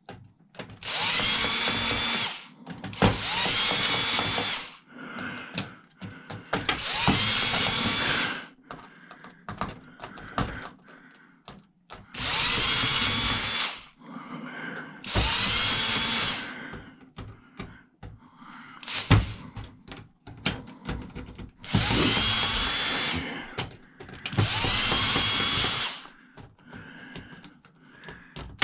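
Cordless drill-driver run in short bursts of a second or two, seven times, its motor whine rising at the start of each, backing screws out of a cash register's casing. Small clicks and rattles of screws and loose parts come between the bursts.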